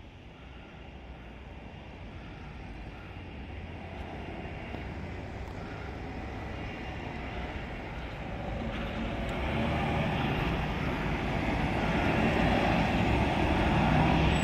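A DAF semi-truck with its trailer approaches through a roundabout and drives past close by. Its diesel engine and tyre noise grow steadily louder and are loudest near the end as it passes.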